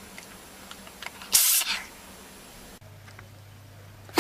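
An animal sneezing: one short, sharp sneeze about a second and a half in, and another sneeze beginning right at the end.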